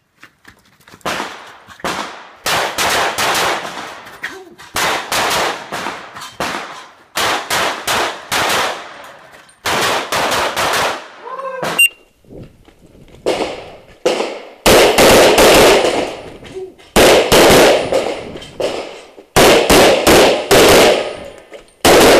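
Strings of pistol shots fired in rapid pairs and groups, each string trailing off in echo, one run of fire after another. About halfway through, a short electronic shot-timer beep starts another run.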